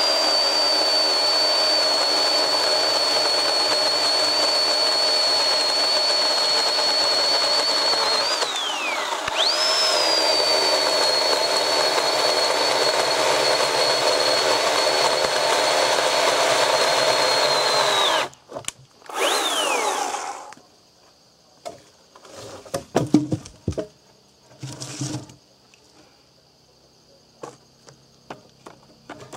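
Oregon 40V battery-powered electric chainsaw running and cutting through a log. Its electric motor gives a steady high whine over the chain noise, which sags briefly about eight seconds in and picks back up. The saw stops suddenly, gives one short burst that winds down, and is followed by a few wooden knocks and clatters.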